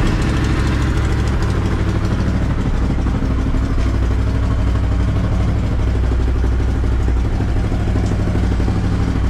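Can-Am Renegade 1000's Rotax V-twin engine on its stock exhaust, catching suddenly and then idling steadily just after a cold start.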